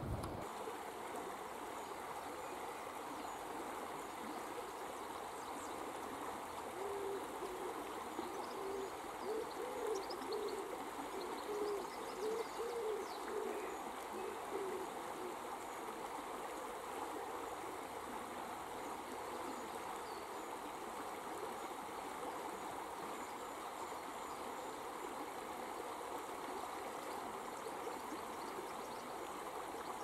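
Shallow river running over rocks, a steady rush of water. From about seven to fourteen seconds in, a series of short low-pitched notes sounds over it.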